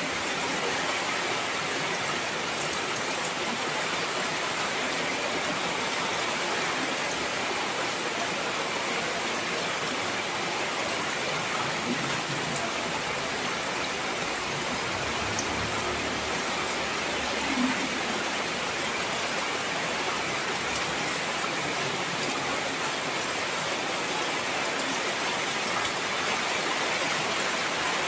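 Heavy rain falling steadily, a dense even hiss of drops on surfaces, with a couple of faint knocks or drips about halfway through.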